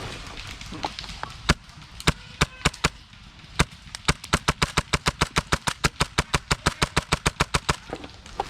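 Airsoft gun firing: several single shots at uneven intervals, then a rapid, even string of shots about eight a second that stops shortly before the end.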